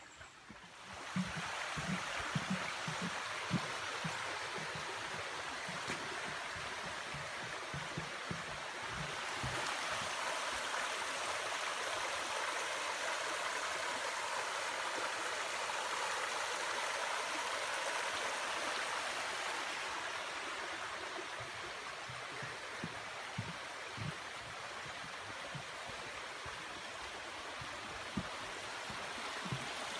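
Shallow forest creek running steadily over its rocky bed; the sound of the water comes up about a second in. Scattered low thumps of footsteps on the trail and boardwalk are heard under it.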